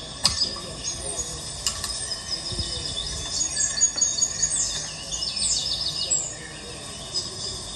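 Small birds chirping and twittering in a cluster of short, high calls and falling notes, busiest in the middle of the stretch, with a couple of sharp clicks near the start.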